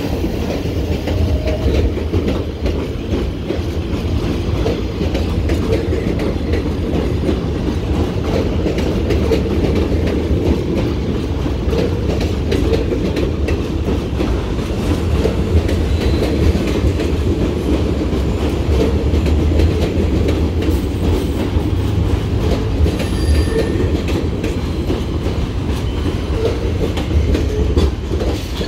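R46 New York subway cars running past along an open elevated station platform: a steady, loud rumble of wheels on rails, with clickety-clack from the rail joints.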